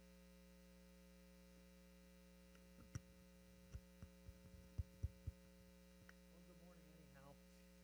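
Steady electrical mains hum from the PA system, with a run of sharp low thumps and knocks from about three to five seconds in as a microphone is pulled from its stand and handled.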